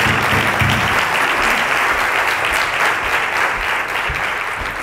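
Audience applauding, a dense and steady clapping that begins to die away near the end.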